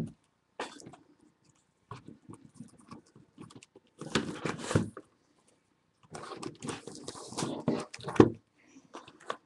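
Crinkling and rustling of card-box packaging being handled: irregular crackly bursts, the longest about four seconds in and again from about six to eight seconds in.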